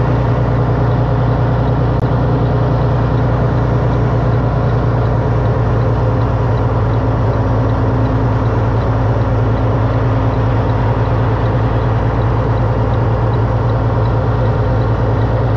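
Semi truck's diesel engine running steadily as the truck moves slowly, heard from inside the cab: a constant low drone.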